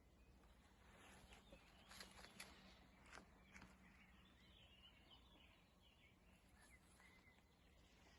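Faint forest-edge ambience with small birds chirping in the distance, and a few sharp clicks in the first half.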